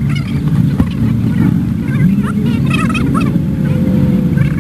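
Fast-forwarded car wash ambience: a steady low machine drone with a rising whine about halfway through, and sped-up, high-pitched voices chattering over it.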